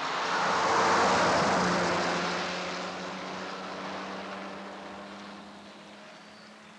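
Old open-top motor truck driving past. Its engine grows loud over the first second, then fades away over the next several seconds.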